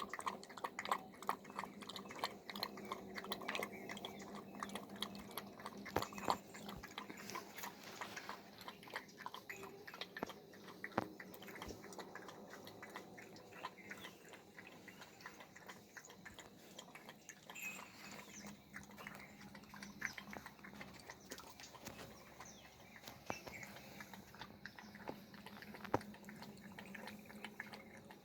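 Puppy lapping milk fast, a rapid, continuous run of wet lapping clicks.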